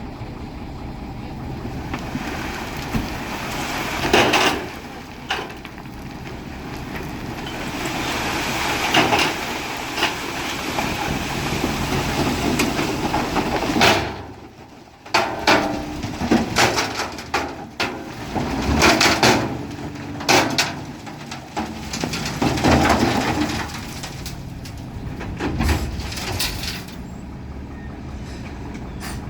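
Single-axle dump truck running while it tips a load of earth, with repeated knocks and rushing bursts as the soil spills and the body clatters. The sound drops away briefly about halfway through.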